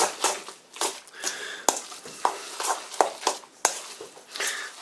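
A utensil stirring thick, wet seitan dough in a stainless steel bowl, with repeated knocks and scrapes against the metal about two or three times a second and a squelching of the dough. The wheat gluten has soaked up the liquid, so the mass is stiffening and getting heavier to stir.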